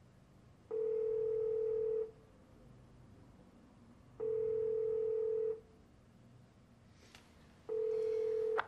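Telephone ringback tone: a steady low tone about a second and a half long, sounding three times at even intervals, as a call rings out waiting to be answered. The third tone is cut short just before the end.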